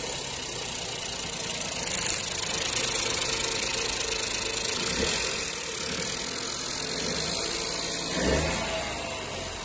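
Ford 1.0 EcoBoost three-cylinder turbocharged petrol engine (M2DA) idling steadily, with a short rev blip about eight seconds in.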